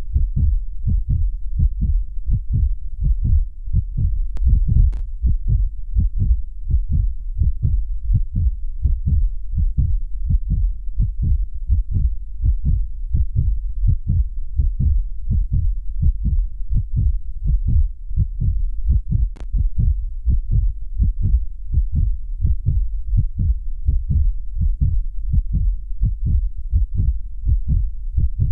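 Human heartbeat: a steady, even rhythm of low, muffled lub-dub thumps over a constant deep rumble.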